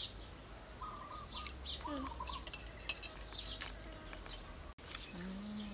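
Small birds chirping repeatedly, with a few sharp clinks of metal spoons against a metal serving plate.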